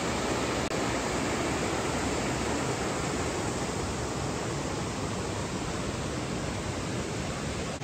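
A rocky stream rushing over boulders in whitewater cascades: a steady, even rush of water.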